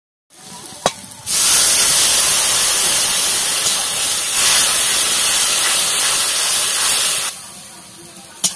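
Wet spice paste sizzling hard in hot oil in a kadai, with steam coming off as it is stirred. The loud hiss starts suddenly about a second in and drops off sharply near the end, with a short knock of the spatula just before it starts and another at the end.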